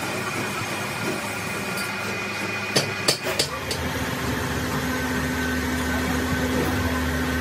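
Crankshaft grinding machine running with a steady mechanical hum. A few sharp metallic knocks come about three seconds in, after which a steadier low hum and a held tone set in.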